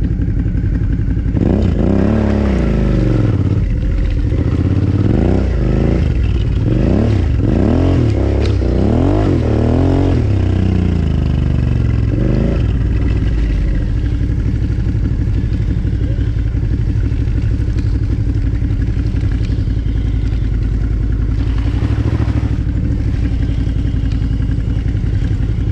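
Suzuki V-Strom 650's V-twin engine under way. The revs rise and fall several times over the first half, then the engine runs steady.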